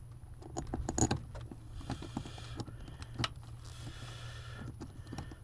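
Bolts and small metal parts clinking and clattering as they are handled and started into the accelerator pedal bracket under the dashboard, with sharp clicks about a second in and again past three seconds.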